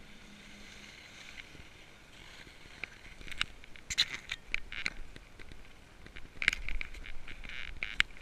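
Skis scraping and sliding over packed snow, with a run of sharp scrapes and clicks about three to five seconds in and again near the end.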